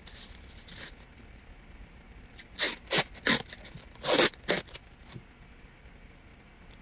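Plastic packaging rustling and crinkling as a new Bluetooth speaker is pulled from its bag and its clear plastic wrap is peeled off, with several sharper crackles from about two and a half to four and a half seconds in.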